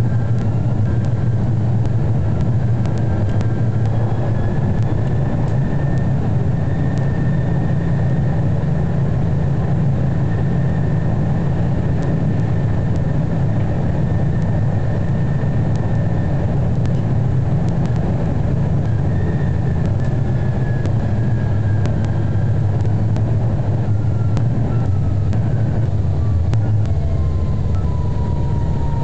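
Electric tram running along its track, heard from inside just behind the driver's cab: a steady low rumble of wheels on rails, with a faint motor whine that rises and falls in pitch and drops lower near the end.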